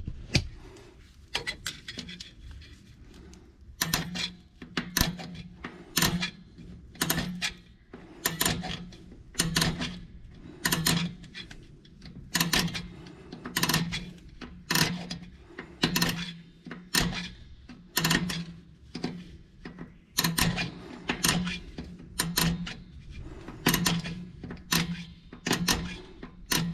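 Hand-tool work on a drum-brake and hub assembly: sharp metallic knocks or clicks, each with a short low ring, repeating at an uneven beat of roughly one a second.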